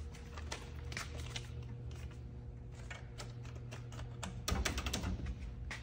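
Scattered small clicks and taps that grow denser and louder about four and a half seconds in as the keypad buttons of a snack vending machine are pressed, over a faint steady low hum.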